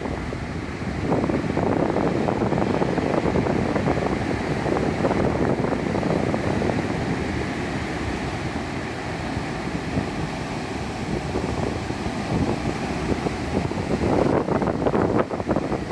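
Rough typhoon surf rushing and crashing, with strong wind buffeting the microphone; the buffeting turns choppier and gustier near the end.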